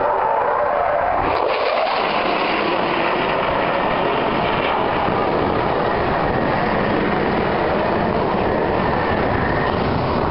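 Aircraft engine running with a loud, steady roar, with a faint whine on top at the start and again near the end.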